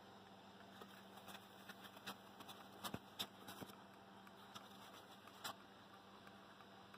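Near silence: room tone with a faint steady hum and a scattering of soft, irregular clicks, most of them in the middle.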